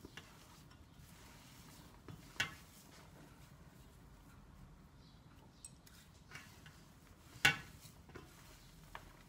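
Wet hands kneading a lentil-and-bulgur köfte mixture in a steel pan: a faint, soft squishing and rustling, with two brief clicks against the pan, the louder one about seven seconds in.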